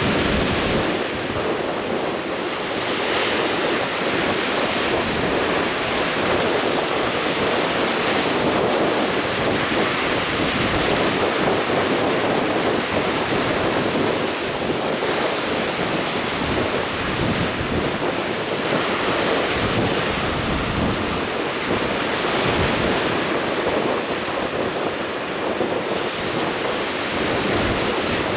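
Strong wind buffeting the microphone over the steady rush of rough sea waves.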